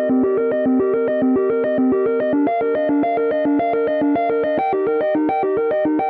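An iPhone iOS 17 ringtone or alarm tone playing: a synthesizer keyboard melody of short notes in a rapid, even run of about eight a second.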